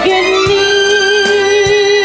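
Live Christian worship song with electronic keyboard accompaniment: one long held melody note with slight vibrato, over a steady beat of about two strokes a second.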